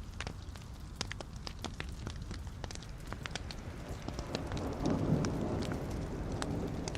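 Wood logs burning in a fireplace, crackling with frequent sharp pops over a steady low rush of flame, which swells louder about five seconds in.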